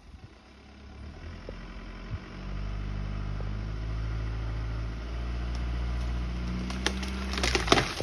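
A vehicle engine pulling steadily under load, then near the end a cluster of sharp cracking and splintering as the tree's wood gives under the strain.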